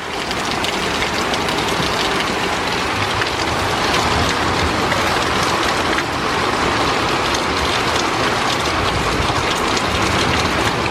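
Heavy wind-driven rain from a thunderstorm, a loud steady rushing that builds over the first second or so.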